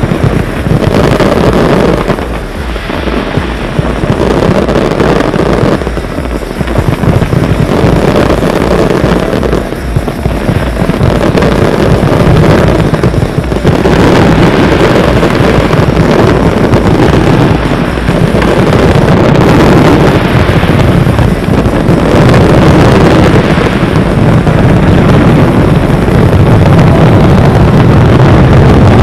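Fireworks barrage: many overlapping bursts merging into a loud, continuous rumble with crackle on top, rising toward the end.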